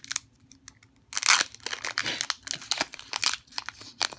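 Foil wrapper of a Pokémon TCG booster pack crinkling and being torn open by hand. There are a few faint clicks at first, then loud, dense crackling from about a second in.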